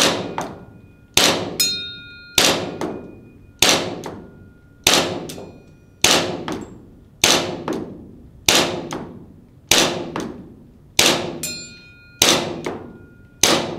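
ARMY TTI Combat Master gas blowback airsoft pistol firing slow aimed shots, about one every 1.2 seconds, each sharp crack echoing off the room. Several shots are followed about half a second later by a ringing ding as the BB strikes a steel target at about 25 m.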